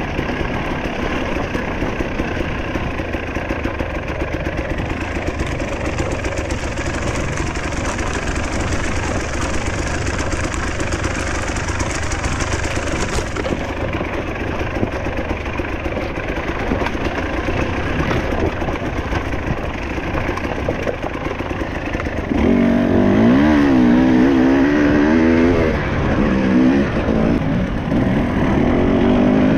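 Enduro dirt bike's engine running under way over rough trail, a steady mix of engine and riding noise. About two-thirds of the way through it gets louder and the engine note rises and falls as the throttle is worked.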